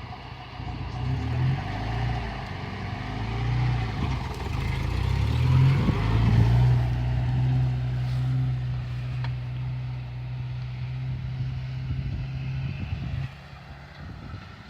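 Opel Frontera A Sport SUV engine running, its pitch and loudness rising over the first six seconds, then holding steady before dropping off suddenly near the end.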